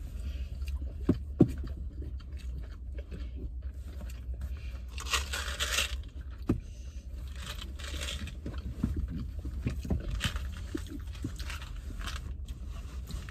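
People chewing and crunching on nori-wrapped rice balls and sushi, with a few short clicks and brief rustles, the strongest about five seconds in, over a steady low hum of the car interior.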